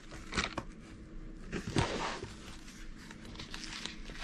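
Small clear plastic storage jars in a diamond-painting case being handled: a few light plastic clicks, then a longer crinkly rustle about two seconds in.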